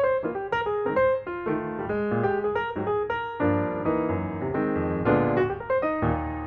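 Background music: a light piano melody with chords, notes struck in a quick steady rhythm.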